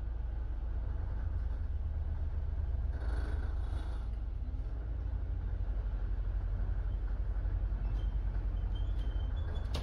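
A London double-decker bus driving, heard from inside on its upper deck: a steady deep rumble of engine and road, with a brief hiss about three seconds in and a few faint ticks near the end.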